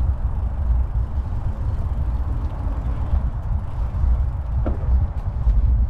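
Wind rumbling on an action camera's microphone during a bicycle ride, with a short rising squeak a little before the end.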